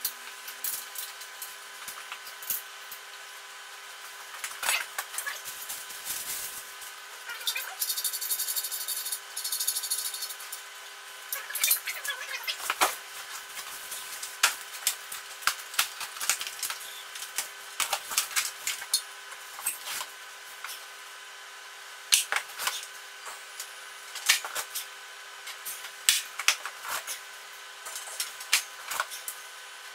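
Clinks, clicks and knocks of hand tools and metal parts being handled during gym machine assembly, scattered and irregular over a steady hum, with a short stretch of rapid rattling about eight seconds in.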